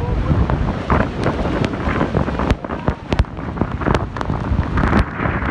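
Strong wind buffeting the microphone, crackling and thumping irregularly over a heavy low rushing noise from the spray and water around the tour boat.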